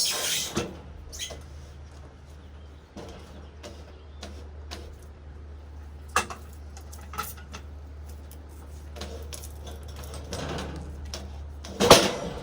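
Scattered clicks and knocks from wood being handled, over a faint steady low hum, with one louder sharp knock near the end.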